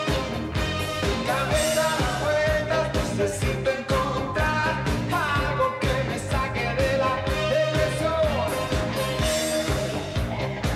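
Live pop-rock band playing an upbeat rock-and-roll song with a singer over it: steady drumbeat, electric guitar and a saxophone horn section.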